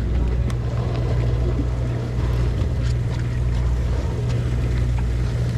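Sportfishing boat's engine running with a steady low drone, with a few faint clicks over it.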